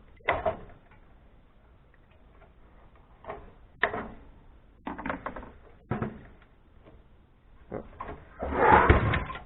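Knocks and rattles of metal parts and cables being handled and pulled out while an amplifier is stripped by hand, with a longer, louder clatter near the end.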